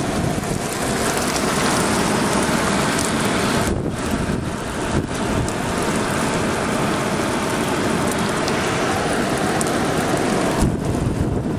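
Niagara Falls: the steady rush of a huge volume of falling water, a constant dense noise without breaks.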